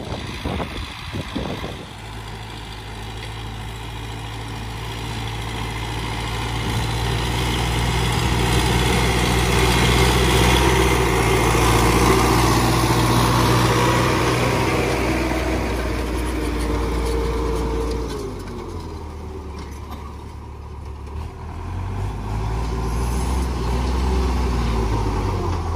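Tractor engine running steadily, growing louder over the first ten seconds or so as it comes closer. About eighteen seconds in the engine note drops, then picks up again a few seconds later.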